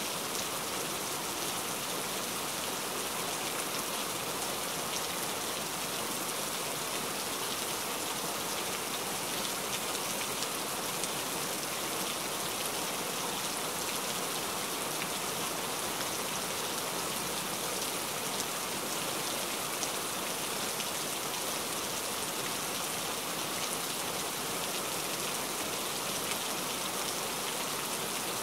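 Steady rain falling: a dense, even hiss of many fine drops, unchanging throughout.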